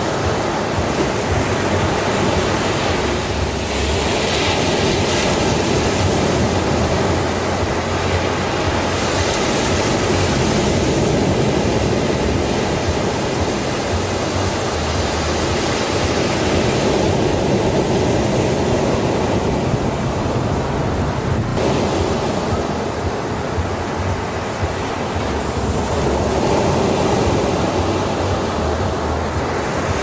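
Ocean surf breaking and washing up a sandy beach: a continuous rush of water noise that swells and eases every few seconds as the waves come in.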